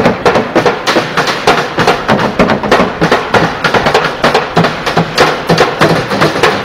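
Busker drumming with sticks on an improvised kit of plastic buckets, plastic jerry cans and metal pans and boxes, a fast, steady rhythm of sharp hits at about five or six strokes a second.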